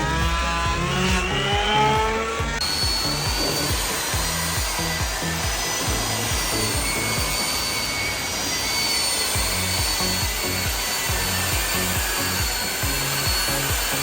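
A powered woodworking machine running with a steady high whine, over background music with a steady beat. In the first couple of seconds a motor revs up in pitch, then cuts off.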